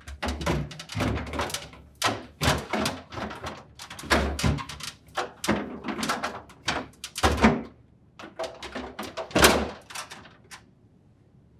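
Hard plastic crisper drawer cover frame of an LG refrigerator knocking and clattering against the fridge's plastic liner and rails as it is worked into place. Irregular sharp knocks and taps, thinning out near the end.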